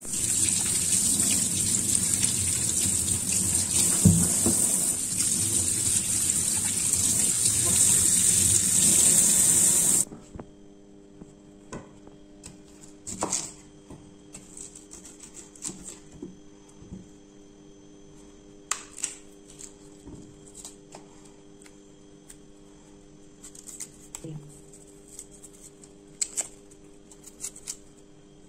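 Tap water running hard into a sink for about ten seconds, stopping abruptly. Then a chef's knife cutting raw cassava root on a wooden chopping board: scattered sharp knocks of the blade and scraping as the thick peel is pried off.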